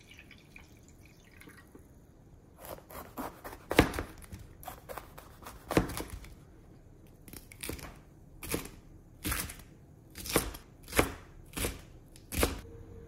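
A kitchen knife slicing green peppers into strips on a cutting board: over a dozen sharp knife strokes against the board, starting about two and a half seconds in and falling into a steady rhythm of roughly one stroke every two-thirds of a second. Faint running water trickles into a bowl at the start.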